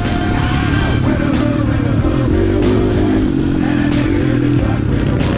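KTM 450 SX-F single-cylinder four-stroke motocross engine running under riding load, its pitch rising and falling as the throttle is worked, with occasional knocks and clatter from the bike on the rough dirt trail.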